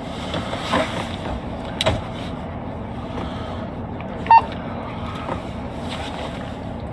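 Steady running noise of an idling patrol car, heard from inside the cabin. A sharp click comes a couple of seconds in, and a short electronic beep comes a little past the middle.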